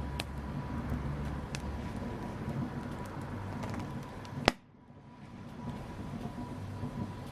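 Wood fire crackling in a fireplace: a steady low rumble of flames with scattered sharp pops. A loud pop comes about four and a half seconds in, then the sound cuts out almost completely and fades back in.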